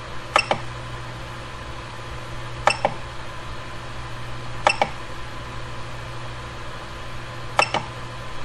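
Menu selections on the Ender 3 V2 Neo 3D printer's control knob: four short double clicks, about two seconds apart, over a steady low hum.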